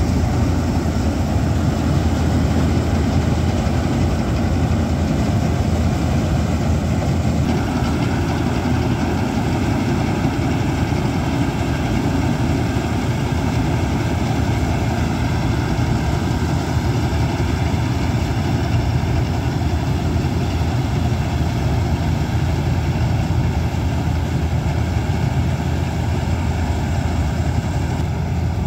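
Standard TSC-513 combine harvester running steadily while harvesting paddy: a heavy diesel engine drone mixed with the clatter of its cutting and threshing machinery, with no pauses.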